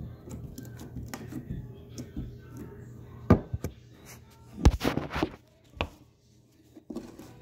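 Green slime being pressed and pulled off a wooden tabletop by hand, with a few loud knocks and rubbing about halfway through as the phone is picked up and handled.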